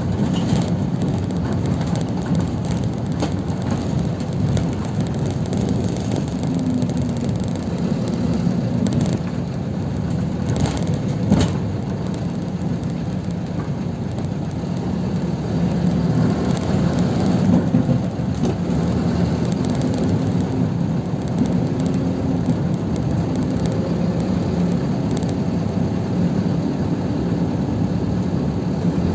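City bus running through town, heard from inside the cabin: a steady low engine and road rumble, with a few sharp knocks and rattles a little before the middle.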